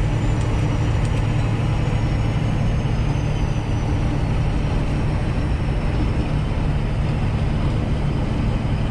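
Semi truck's diesel engine and road noise heard inside the cab while cruising on the highway: a steady low drone.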